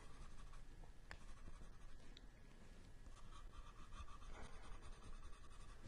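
Faint scratching of drawing strokes on heavy paper as a sketch is shaded darker.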